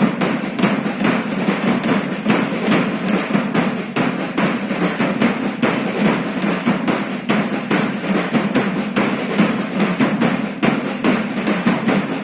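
Festival percussion band of drums playing a fast, driving rhythm of dense, steady beats.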